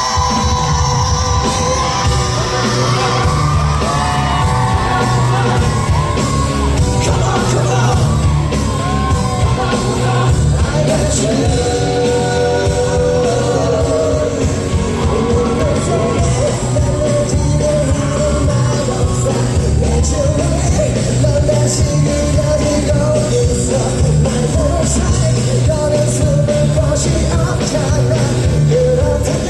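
Live concert music: a male singer singing over a full band with a strong, steady bass line, echoing in a large hall.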